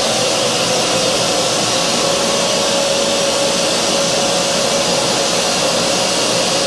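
Vacuum cleaner running steadily, its hose nozzle sucking up metal swarf around a drilled-out pop rivet: a loud rushing of air with a steady motor whine.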